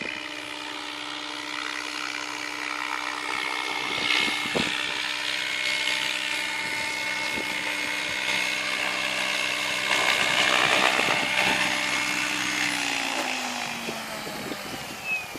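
SAB Goblin electric RC helicopter flying in to land, its motor and main rotor making a steady whine that grows louder as it approaches. Near the end the whine drops in pitch as it settles onto the ground.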